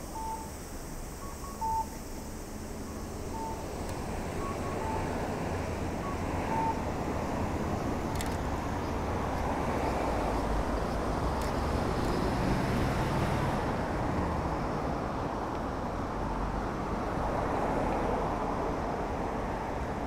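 Road traffic on a suburban street, a steady rush that swells louder from about four seconds in, with a run of short electronic beeps in the first several seconds.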